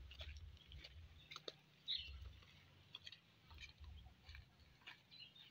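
Near silence: faint scattered clicks and scuffs of footsteps on a dirt path, over a low rumble that comes and goes.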